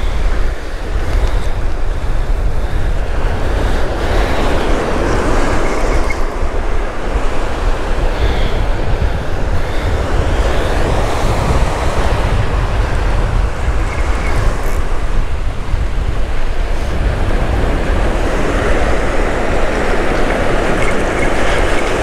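Ocean surf breaking and washing up the beach in swells, with wind buffeting the microphone as a steady low rumble.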